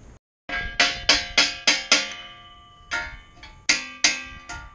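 Hammer blows on a metal exhaust header, knocking it onto the cylinder-head studs. The aftermarket header's flange is a tight fit even with its holes drilled out. Sharp clanging strikes with a ringing tail come in a quick run of about three a second, then a single blow, then another run.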